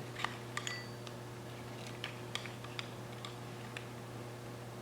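Sparse, light metallic clicks and taps from the parts of a Triumph A-type overdrive as its oil-stuck brass thrust washer is picked at, over a steady low hum.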